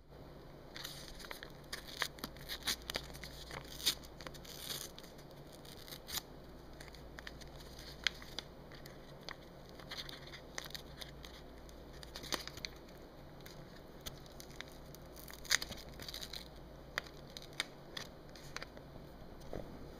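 Paper packaging being crinkled and torn close up: irregular crackles and short rustles, some sharper ticks, with no steady rhythm.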